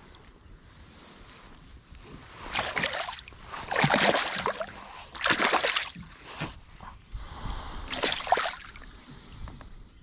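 Water splashing and sloshing in four separate surges, each under a second long.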